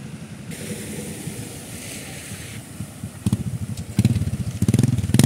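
Vehicles driving through shallow floodwater on a road: tyres hissing and splashing through the water with a low engine rumble, then a motorbike passing close through the flood, its engine much louder from about three seconds in.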